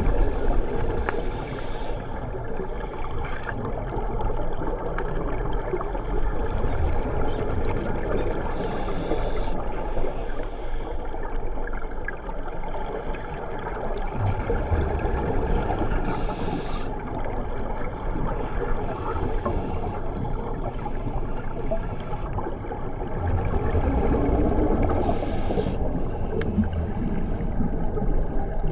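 Underwater scuba-dive sound: a steady muffled water rumble, broken about every seven to eight seconds by a short hiss of exhaled bubbles from a diver's regulator.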